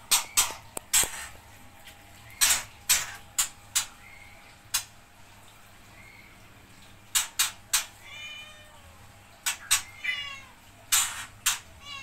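Domestic cat meowing a few short times, about two-thirds of the way in, among a string of sharp, short clacks that come at irregular intervals throughout and are the loudest sounds.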